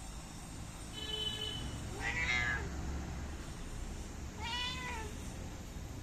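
Domestic cat meowing three times, the last two calls rising and falling in pitch.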